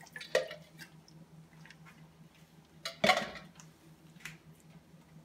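Kitchen clatter of cookware and utensils: a light knock just after the start and a sharper, louder knock about three seconds in, with a few faint ticks, over a low steady hum.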